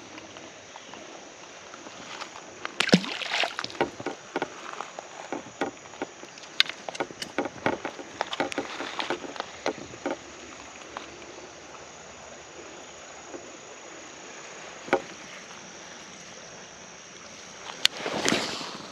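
Steady rush of shallow creek water, with irregular splashes and knocks through the first half, as from wading through the water over stones. A short burst of rushing noise comes near the end.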